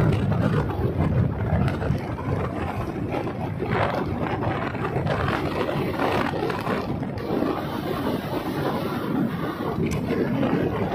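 Wind buffeting the microphone on a Suzuki scooter moving at speed, over the steady drone of its engine and tyres.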